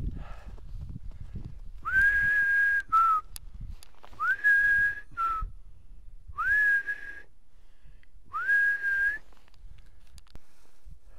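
A person whistling four times, each note sliding up and then held for about a second, the first two followed by a short lower note, a whistle to call a dog.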